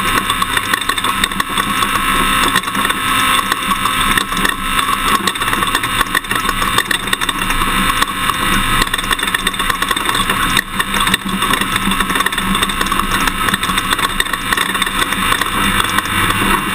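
Toyota Tundra pickup driving off-road: a steady mix of engine, tyre and wind noise, with frequent rattles and knocks from the rough ground.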